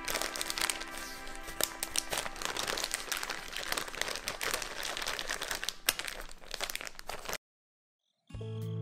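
Plastic zip-top bag crinkling and crackling as hands squeeze pork and marinade inside it, over soft background music. About seven seconds in it cuts to a brief silence, and new music starts near the end.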